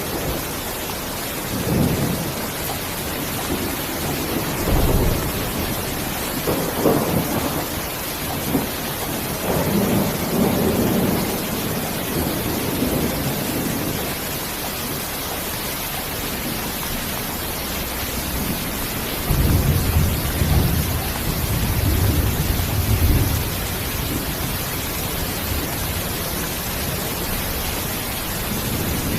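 Steady rain falling as an even hiss, with low rolls of thunder rising and fading several times, the longest about twenty seconds in.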